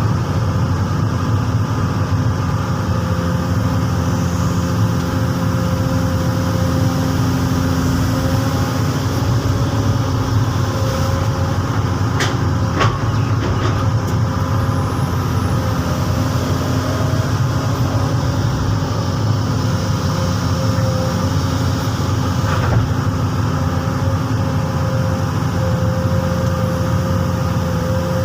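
Komatsu PC200 hydraulic excavator's diesel engine running steadily while it works a ditch, with a few brief sharp clicks or knocks about halfway through and again later.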